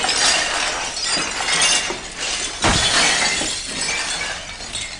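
Mugs and glassware crashing down and shattering in a long run of breaking and clinking, with the heaviest crash about two and a half seconds in.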